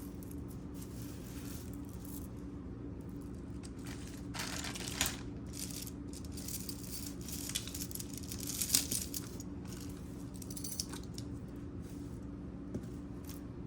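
Black glass beads and chain of a tassel necklace clinking and rattling softly now and then as it is handled, over a steady low hum.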